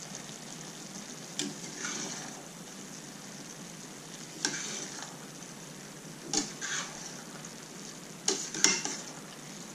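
Curry gravy with pasta bubbling in a stainless steel pan with a steady sizzle, while it is stirred with a cooking spoon that scrapes and knocks against the pan about half a dozen times.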